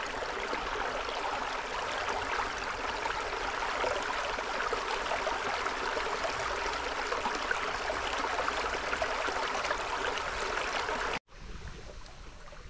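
A shallow stream running steadily, with water noise throughout. About eleven seconds in the sound cuts out abruptly and comes back quieter.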